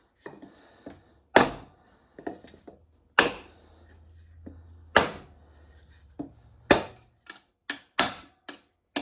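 Hammer blows driving a bearing down into a Warner Bearing T9 transmission: five heavy metallic strikes, roughly one every two seconds, each ringing briefly, with lighter taps between, seating the bearing until it bottoms out.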